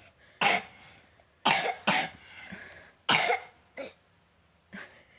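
Young child with a cough coughing in short bursts, about six coughs over five seconds.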